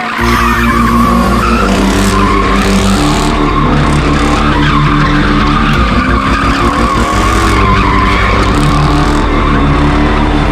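Dodge Charger doing donuts: a continuous tire screech over the engine held at high revs, its pitch stepping up and down as the throttle is worked.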